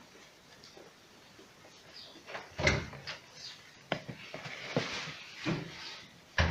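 Scattered knocks and scraping as the parts of a submersible pump are handled and wiped clean, with the loudest knock about a third of the way in and another sharp one near the end.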